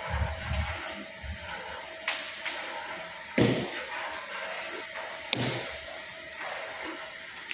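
Heavy thuds of work in a bakery, the loudest about three and a half seconds in and another a couple of seconds later, over a steady machine hum with a faint whine.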